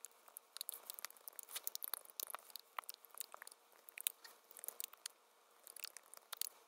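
Faint, quick, irregular clicking of keys typing on a computer keyboard, several clicks a second with a brief pause near the end.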